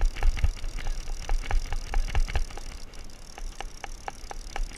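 Fishing reel being cranked to bring up a hooked fish, its gears clicking about four times a second over a low rumble.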